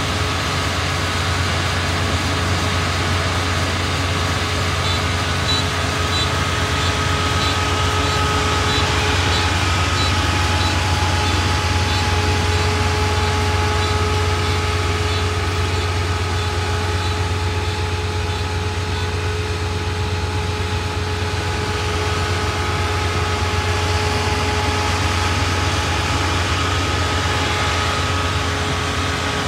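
Kubota ER448 four-row, 48-horsepower combine harvester running steadily, its diesel engine at a constant speed. It makes an even hum with a few steady whining tones above it.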